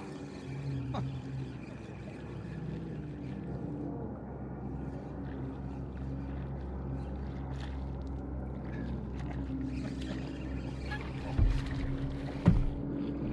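Small outboard motor idling steadily at trolling speed. Two loud thumps come about a second apart near the end.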